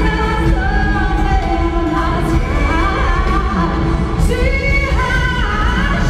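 Female pop vocalist singing live over a loud band with heavy bass, holding long notes that shift in pitch.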